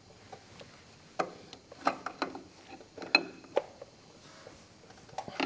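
Spanner clicking and clinking against a hydraulic fitting on a tractor's power steering pump as the fitting is worked loose: about half a dozen short, separate metal knocks, one ringing briefly.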